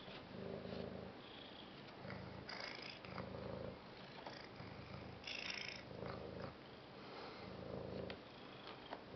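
Domestic tabby cat purring while its head is stroked, a low, throbbing purr that comes in pulses under a second long with short breaks between them. Two brief rustles are heard about two and a half and five seconds in.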